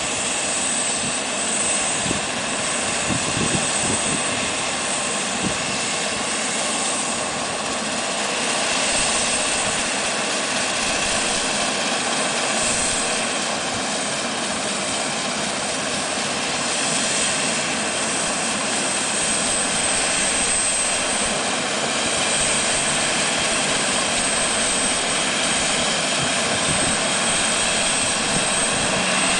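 Air-ambulance helicopter's turbine engines running with the main rotor turning on the pad before lift-off: a steady high whine over the rotor's rushing noise.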